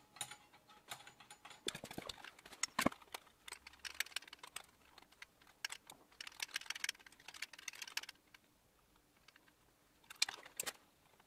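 Small metal clicks and rattles of hand tools and loose fittings as the front hub's brake reaction arm and brake linkage are undone. The clicks come in short irregular clusters, with a quieter stretch about two seconds before the end.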